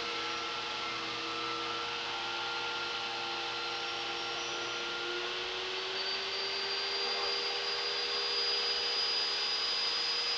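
Benchtop table saw running together with a shop vacuum on its dust port while a Western hemlock board is ripped into strips: a steady whine with several held tones, getting a little louder in the second half as the cut goes on.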